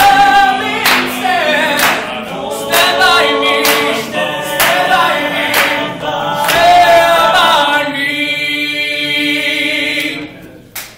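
A cappella group singing in harmony, with a sharp click on the beat about once a second. It ends on a long held chord that dies away near the end.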